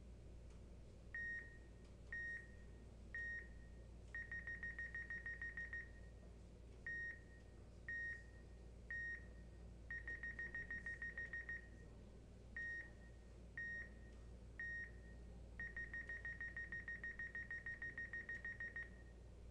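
Computer beeps from motion-capture calibration software, all on one steady high tone. Three times over, three single countdown beeps about a second apart are followed by a fast run of beeps, about seven a second, while the pose is being captured. The last run is the longest.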